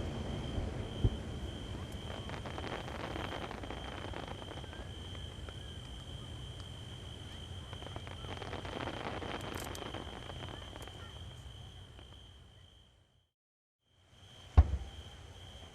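Fireworks over the sea: the rumbling echo of a large shell burst dies away with faint crackling, over a steady high-pitched drone of crickets. Near the end, after a brief silence, a single sharp bang.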